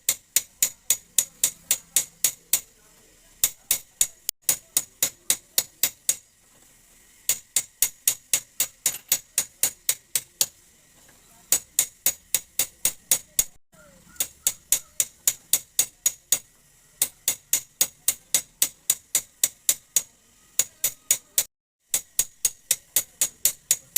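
Hammer tapping on the metal body of a motorcycle's rear mono-shock absorber, light ringing metal-on-metal blows about three a second, in runs of several seconds with short pauses. The taps are peening the oil-seal opening slightly wider.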